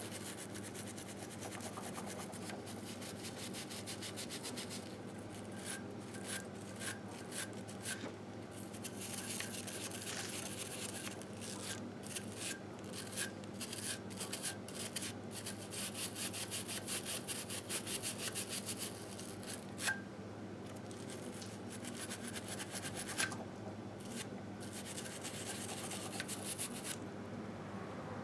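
A small hand tool scraping and scrubbing caked grime off a 1958 Harley-Davidson Sportster's engine case, in runs of quick rasping strokes with pauses between them. There are a couple of sharper clicks of the tool on the metal about two-thirds of the way through, over a steady low hum.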